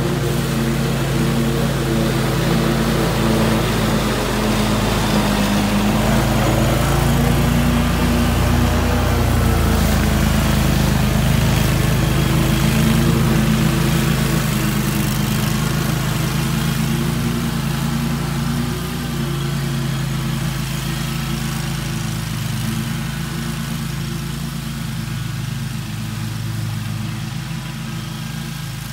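Scag Tiger Cat II zero-turn mower running steadily under load as it cuts thick grass, engine and blades together. It gets louder as it passes close by in the middle, then fades as it drives away.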